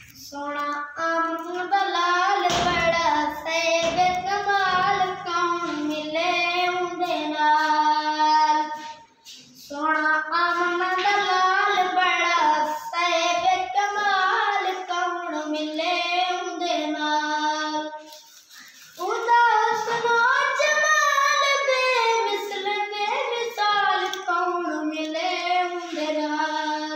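A young boy singing a naat unaccompanied, in long, held melodic phrases with brief pauses for breath about nine and eighteen seconds in.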